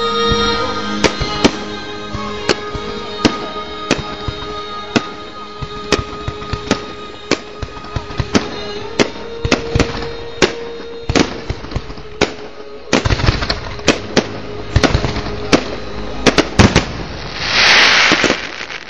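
Fireworks display: a steady run of sharp shell bursts and bangs that thickens into a dense salvo about two-thirds of the way through. Near the end comes a loud hissing rush lasting about a second.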